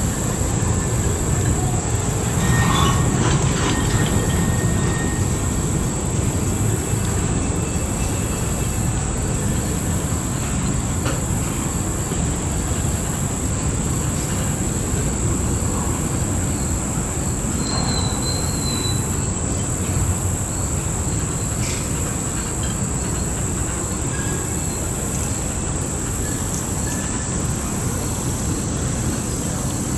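Freight train of covered hopper cars rolling steadily across a stone arch bridge: a continuous low rumble of wheels on rail, with a couple of brief high wheel squeals.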